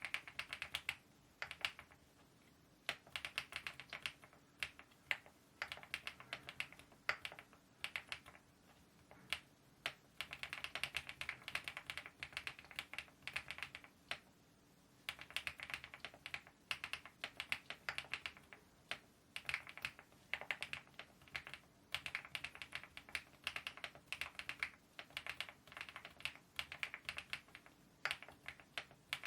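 Typing on a mechanical keyboard fitted with KeyTok Godzilla dye-sublimated, smile-profile keycaps: fast runs of keystrokes with short pauses between them.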